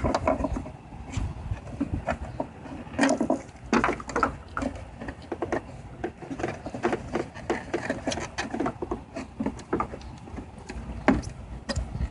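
Irregular plastic clicks, knocks and rattles, several a second, as hands work a car headlight assembly and its fittings loose.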